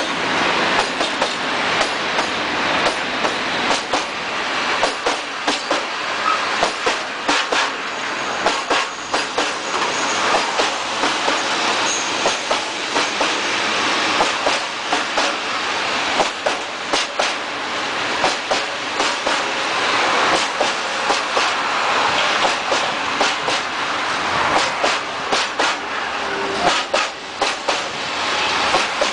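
Freight train of open gondola wagons rolling past close by: a steady rumble and rattle, with the wheels clickety-clacking over the rail joints in repeated clusters of knocks.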